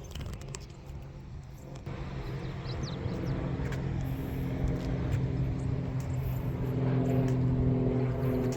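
A motor vehicle's engine hum growing steadily louder as it approaches.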